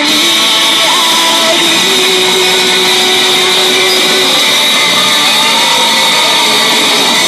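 Loud live band music with a singer through the stage PA, captured close up and overdriven into a harsh, noisy wash, with a few held sung notes showing through.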